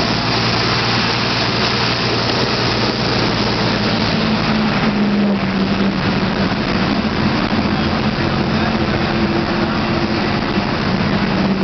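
Bus engine running with steady road and rattle noise, heard from inside the moving bus. The engine note changes pitch about five seconds in.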